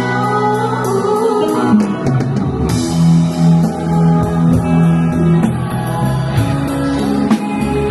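Live rock band playing a song: drum kit, electric guitar and bass together, with sustained guitar notes over a steady drum beat.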